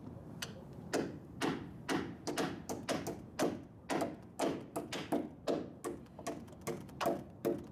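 Hammer driving nails into the wooden rafters at the roof ridge: a steady run of sharp blows, about two or three a second, starting about a second in.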